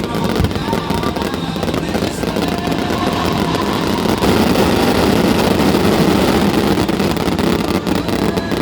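Fireworks crackling and popping in a dense, continuous barrage, growing louder about four seconds in.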